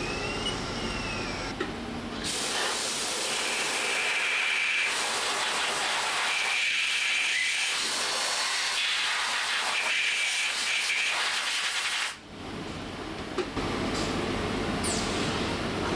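Loud, steady spraying hiss inside a CNC milling machine. It starts about two seconds in and cuts off abruptly about twelve seconds in. Before it there is a quieter machine sound with a tone that rises and falls.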